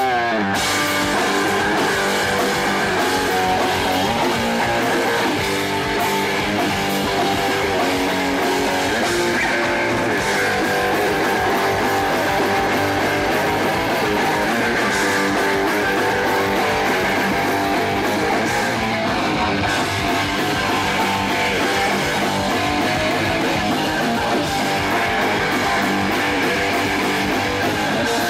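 A hardcore punk band playing live and loud: distorted electric guitar strummed over bass and drum kit.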